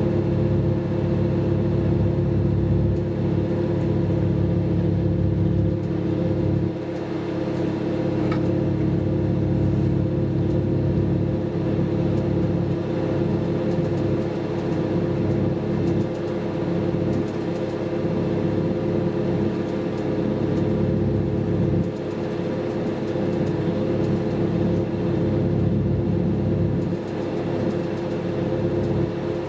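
DB Class 612 RegioSwinger diesel multiple unit heard from inside the passenger compartment while running, with the steady drone of its underfloor diesel engines over a low rumble from the running gear. The low rumble eases briefly a few times.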